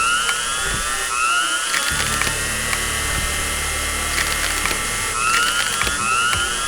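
Background music: a looping track in which pairs of short rising sweeps come back about every five seconds, over steady held tones and a low pulse.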